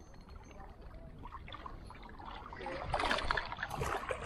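Sea water lapping and trickling among shoreline rocks, with a louder spell of splashing about three seconds in.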